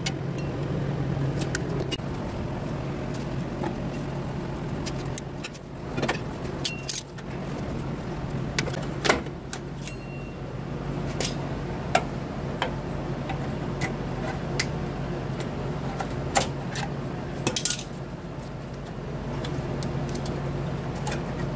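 Hand tools clicking and clinking on the metal parts of a rear drum brake while a wheel cylinder is unbolted, in scattered sharp knocks over a steady low hum.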